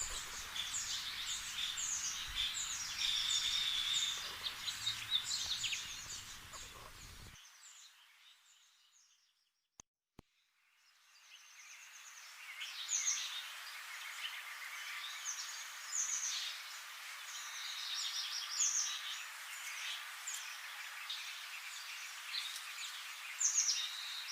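Small birds chirping in a dense, continuous chatter of quick high calls. It fades out about seven seconds in, leaves a few seconds of silence, then fades back in.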